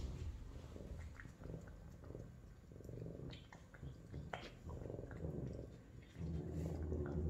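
Savannah cat making a low, continuous rumble, louder near the end, with a few short clicks as one cat eats wet food from a plastic bowl.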